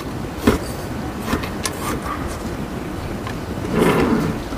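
Small clicks and rustles of metal tweezers and nitrile-gloved hands working in the gravel of a succulent's pot, a few in the first two seconds and a louder rustle near the end, over a steady low rumble.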